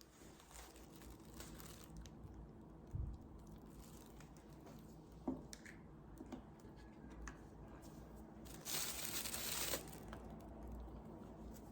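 Faint small cracks and tearing as steamed chestnut shells are cut and peeled, with a louder rustle about nine seconds in.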